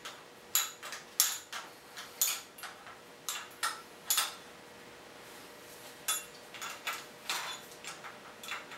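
A steel wrench clicking and clinking against the fuel pipe nuts and rocker gear on a Detroit Diesel 6V53's cylinder head, in irregular sharp metallic taps as the nuts are snugged by hand. A faint steady hum runs underneath.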